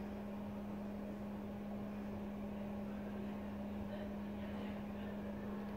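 Steady low mechanical hum in a small room, holding one constant pitch, with faint soft sounds near the middle.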